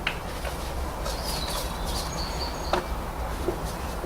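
A few faint plastic clicks and taps as a new air filter is set into the air filter box of a 2010 Honda Insight, over a low steady hum.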